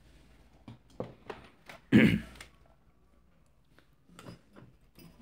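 Small clicks and taps of hands handling wires and parts on a battery charger's circuit board, with one louder, rough half-second noise about two seconds in.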